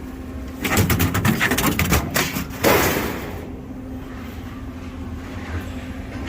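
Scrap metal clattering and banging as a load is tipped off onto the scrap pile, ending in one heavier crash about two and a half seconds in. A steady low hum runs underneath.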